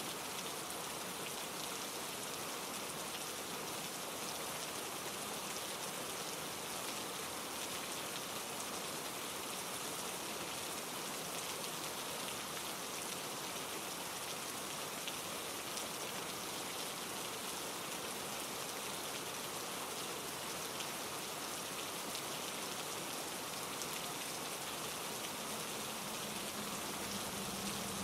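Steady rain falling through trees, blended with wind in the branches and a mountain stream tumbling over granite rocks. A faint low hum creeps in near the end.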